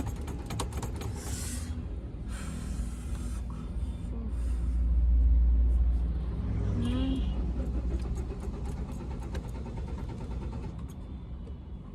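Low rumble of a car that will not start, swelling for a couple of seconds about five seconds in.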